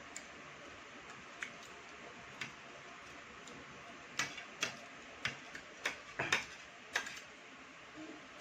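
Scattered light clicks and taps of eating utensils against plates and bowls, about a dozen, irregular, bunched most thickly in the second half.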